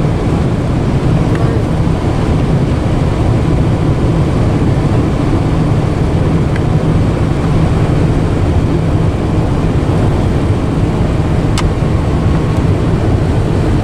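Steady road and engine rumble heard inside a moving car, with a faint click late on.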